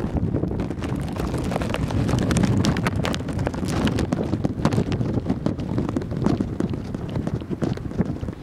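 Wind buffeting the microphone, with frequent crackling pops, over a steady low rumble of a Dash 8 turboprop airliner climbing away after takeoff.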